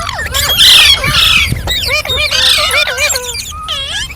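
Green parrots chattering: a quick, loud string of short whistled calls that slide up and down in pitch, broken by harsh squawks about a second in and again midway.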